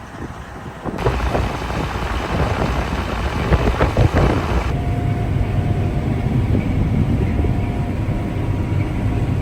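Heavy farm machinery running. About a second in, the sound jumps to a loud, rattling clatter, and a little before the halfway point it changes to a steady engine drone with a faint high whine.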